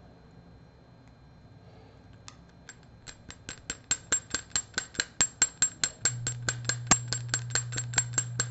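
Metal hair stacker tapped repeatedly on the tying bench to even the tips of a pinch of elk hair: sharp, ringing metallic clicks, a few at first, then a steady run of about five a second.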